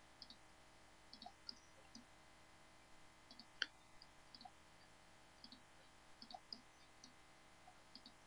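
Faint computer mouse button clicks, irregular and often in quick press-and-release pairs, as points are picked one after another in CAD software. One sharper click comes about three and a half seconds in.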